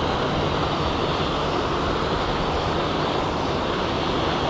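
Steady rush of water pouring from a canal spillway outlet into the canal.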